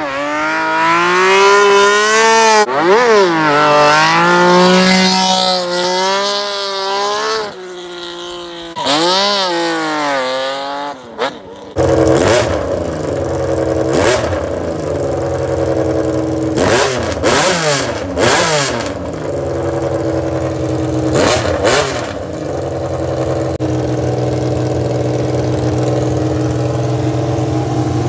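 Honda CBX1000 inline-six motorcycle engine revving through the gears as the bike rides past, rising and falling in pitch. About twelve seconds in it is heard standing and idling, with several quick throttle blips before it settles into a steady idle.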